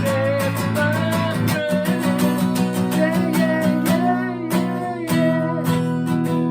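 Acoustic guitar strummed steadily under a held, wavering melody line: an instrumental passage between the verses of a song.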